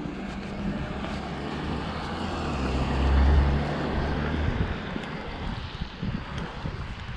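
A car passing on a wet road: engine hum and tyre hiss swell to a peak about three seconds in, then fade. Wind buffets the microphone throughout.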